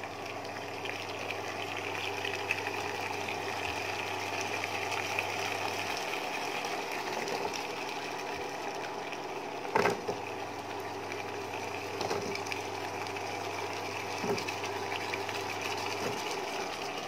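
Steady hum and hiss from an electric hob with a wok of masala cooking gently on low heat. The low part of the hum cuts out for a few seconds and comes back. A short knock about ten seconds in, and a couple of fainter ones later, come as potato chunks are tipped into the pan.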